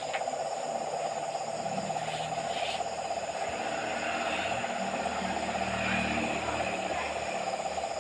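A night chorus of many frogs calling together, a dense steady trill with scattered higher calls over it. A faint low hum swells and fades through the middle.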